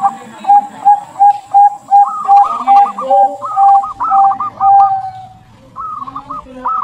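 Zebra dove (perkutut) cooing: a run of short, evenly spaced notes about three a second, overlaid by curling higher phrases. There is a short lull near the end, then the calls start again.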